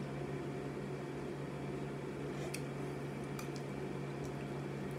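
Steady low background hum, as from a running appliance or fan, under soft eating sounds, with a few faint clicks about halfway through.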